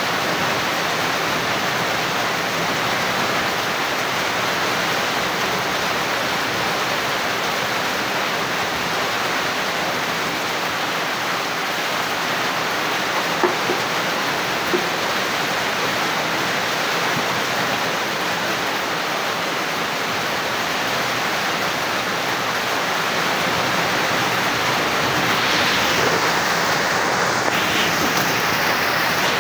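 Heavy rain pouring down, with runoff streaming off the roof edges onto waterlogged ground: a steady, even rush. A couple of light knocks about halfway through.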